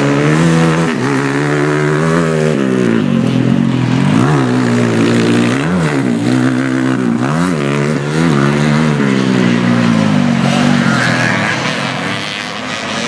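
Dirt bike engine revving hard and falling back over and over, its pitch climbing and dropping every second or two, as on a motocross track.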